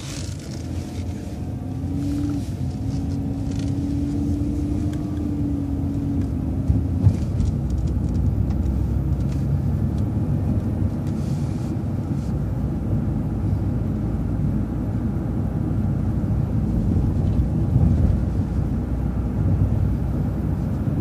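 A road vehicle driving: a steady low engine rumble and road noise that builds over the first couple of seconds as it pulls away, with a faint held whine from about two to seven seconds in.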